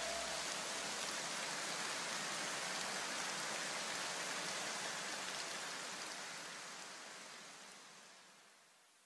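Even, rain-like hiss left as the background music ends, fading slowly away to silence about eight seconds in.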